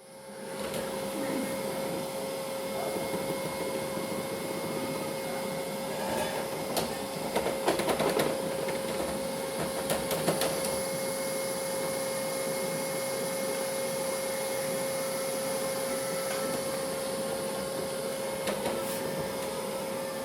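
Robot vacuum cleaner running, a steady motor hum with a whirring tone, with a cluster of clicks and knocks around the middle.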